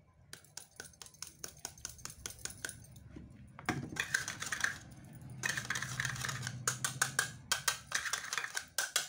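Sugar being knocked out of a measuring cup into a plastic mixing bowl: a run of quick, light taps, then the hiss of granules sliding out, with more taps.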